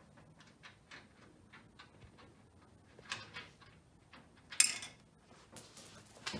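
Light metal clicks, about three a second, from the lock mechanism of a Stack-On steel gun cabinet door being refitted by hand. They are followed by two short scrapes, about three and four and a half seconds in, the second the loudest.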